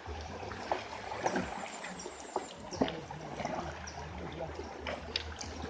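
River water trickling and splashing around a raft, with scattered small splashes and knocks and a faint voice in the background.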